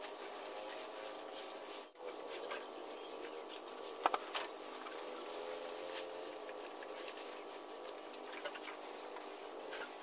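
Cattle feeding from a trough of freshly cut elephant grass: rustling and crunching as they pull at and chew the stalks, with a few sharp clicks about four seconds in.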